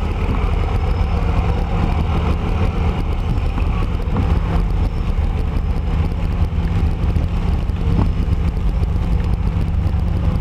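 Steady low rumble of a car driving on a rain-wet street, heard from inside the car: engine and tyres on wet pavement.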